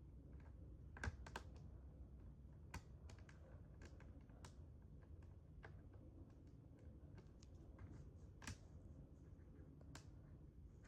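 Faint, irregular clicks and ticks of a screwdriver working on small screws and metal parts inside an iMac G5, with a few sharper clicks scattered through.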